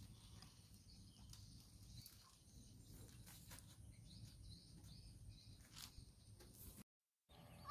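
Near silence: faint outdoor background with a low rumble and a few faint high chirps and ticks, cutting to total silence briefly near the end.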